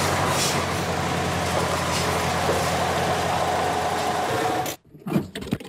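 Iveco LMV 'Rys' armoured car's turbodiesel engine running steadily, cutting off suddenly near the end.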